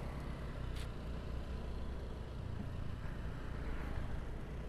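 Motorcycle running while riding, a steady low engine and road rumble with wind noise, and one short click about a second in.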